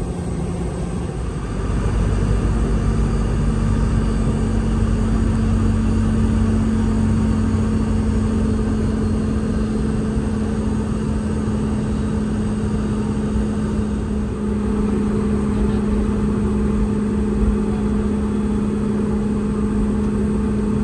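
Rolls-Royce BR715 turbofan engines of a Boeing 717 heard from a seat right beside them in the rear cabin: a steady rumble with a held drone tone. About two seconds in the engines grow louder and their tone steps slightly higher, then holds steady.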